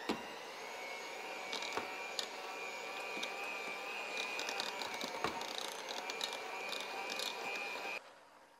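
Electric hand mixer with two beaters running steadily through mashed potatoes in a stainless steel pot, a steady high motor whine with scattered clicks. It cuts off suddenly near the end.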